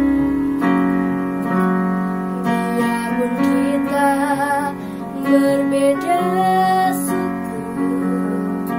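Electronic keyboard playing sustained piano chords, joined a few seconds in by a group of girls singing along.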